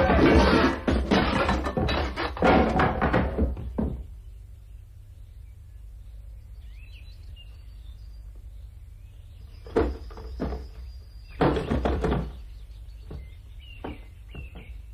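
Cartoon soundtrack: loud, busy clatter and music that stops about four seconds in. A quiet stretch follows, with faint high chirps and a few dull thuds and knocks, the loudest about ten and twelve seconds in.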